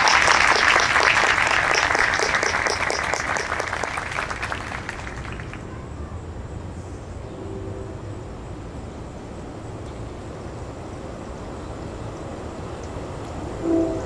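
Audience applauding, the clapping fading out over about the first five seconds, followed by low room noise.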